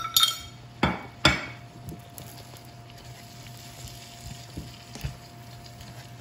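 A few sharp clinks as chicken is scraped off a plate into a skillet, then a spatula stirring chicken, spinach and asparagus in the pan, with soft knocks over a low, steady sizzle of sautéing.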